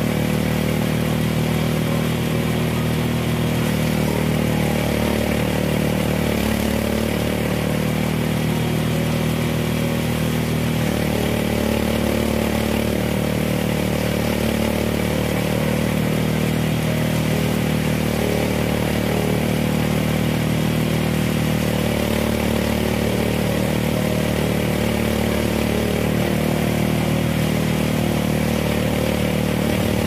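Small engine of a rice harvesting machine running steadily at a constant speed.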